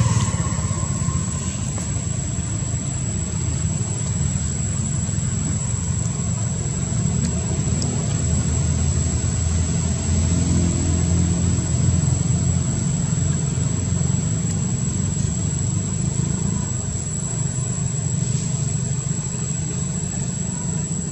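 Steady low rumble of an engine running, with a thin constant high-pitched tone above it.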